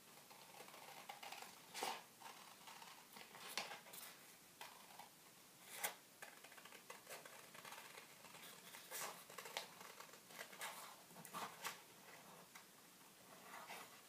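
Scissors cutting paper glued onto cardboard: faint, crisp snips coming irregularly, mixed with light paper rustling.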